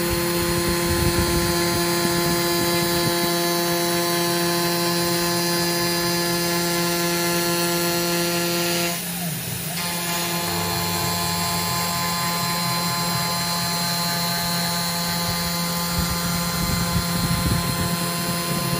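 Genmitsu 3020 Pro Max V1 desktop CNC router's spindle with a 1/4-inch two-flute end mill milling aluminium at 700 mm/min with a 0.5 mm step-down. It is a steady whine of several tones over the cutting noise, and the tone briefly dips and shifts about nine seconds in.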